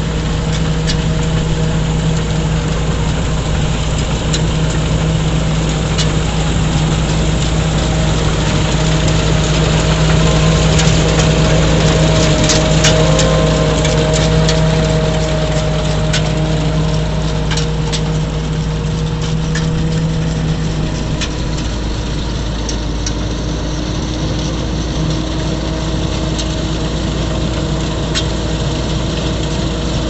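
Kartar 3500 combine harvester's diesel engine and machinery running steadily under load while harvesting rice: a loud, even mechanical drone, with scattered sharp ticks, most of them in the middle.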